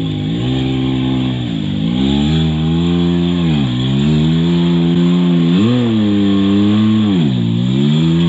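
Side-by-side UTV engine running under changing throttle, its pitch dipping and climbing back several times.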